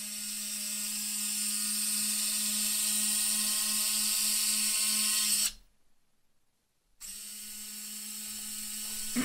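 Behotec electric landing-gear retracts on a 2-cell LiPo, their gear motors running with a steady whine as a strut swings up. The motors stop about five and a half seconds in and start again about a second and a half later.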